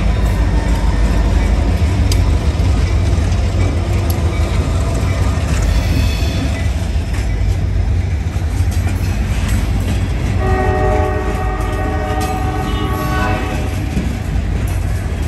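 Heavy freight train passing close by: the rear locomotives, then steel gondola cars rumbling and clacking over the rails. About ten seconds in, a locomotive air horn sounds a chord from farther down the line for about three seconds. It is a warning for a crossing whose gates failed to come down.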